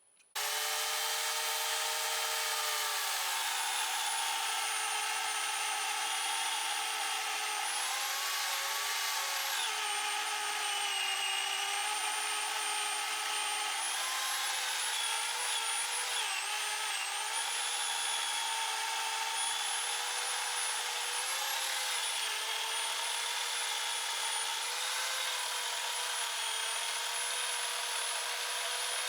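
Power saw cutting into a wet, freshly felled walnut log, starting abruptly about half a second in. The motor runs steadily, and its pitch sags several times as the blade bites into the wood.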